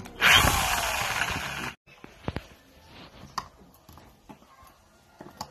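Electric drill with a spade bit boring into a wooden board, running loud for about a second and a half and then stopping abruptly. After that come a few light clicks and taps as a metal concealed cabinet hinge is handled and set into the drilled hole.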